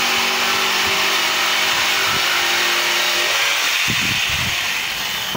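Electric jigsaw cutting through a wooden batten, running loud and steady. About three and a half seconds in the cut ends and the sound eases off, with a few low knocks near the end.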